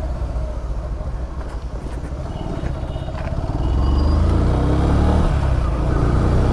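Yamaha FZS V3's single-cylinder engine running on the move, freshly serviced. It gets louder and rises in pitch about three and a half seconds in as the bike picks up speed.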